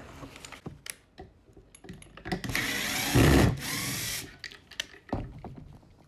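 Cordless drill-driver backing out the screw that holds a garage door keypad to a wooden board, running for about two seconds starting a little over two seconds in, with a few handling clicks around it.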